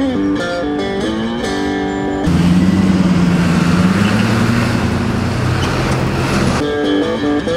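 Blues guitar notes, plucked one at a time, broken off about two seconds in by loud city street traffic. A large vehicle's engine runs with a slowly rising note under a wash of road noise as a bus and a yellow cab pass. The guitar comes back near the end.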